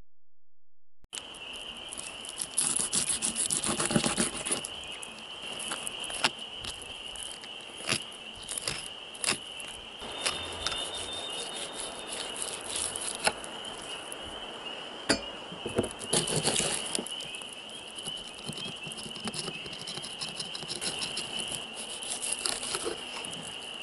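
A wooden-handled fillet knife slicing and scraping through small panfish fillets on a wooden table: irregular scrapes, tears and sharp clicks of the blade, starting about a second in. A steady high trilling chorus sounds throughout.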